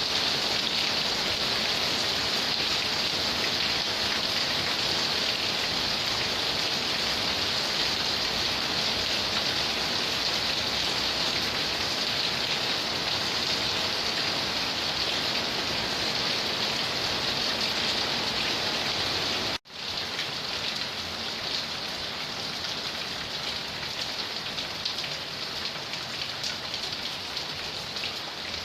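Rain falling steadily in a rainstorm, a dense even hiss. About two-thirds of the way through it cuts out for an instant, then goes on slightly quieter.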